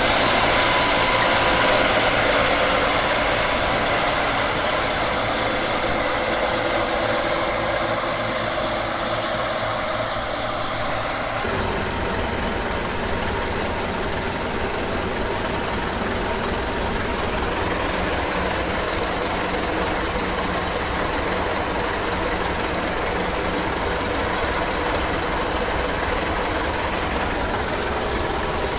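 Bizon Z056 combine harvester running under load, its six-cylinder diesel engine and threshing machinery making a steady mechanical noise while it cuts grain. About eleven seconds in, the sound changes suddenly to the combine unloading: the engine and unloading auger running as grain pours into a trailer.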